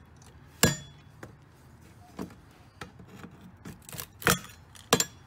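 Sharp metallic clanks and clinks from handling the opened payphone's coin box and its workings: a string of separate knocks, the loudest about half a second in and two more near the end.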